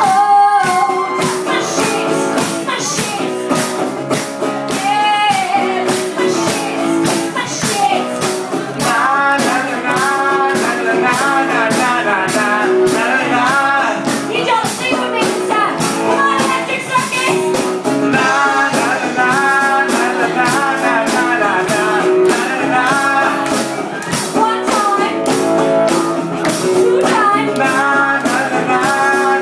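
Live rock-pop mashup: a singer over guitar and a steady, driving beat.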